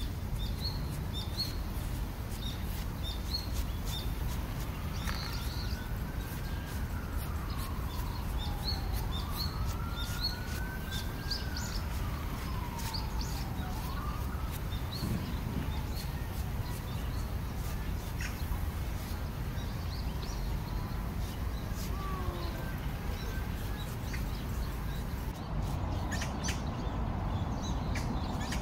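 Small birds chirping over a steady outdoor rumble, while a distant siren rises and falls slowly twice through the middle.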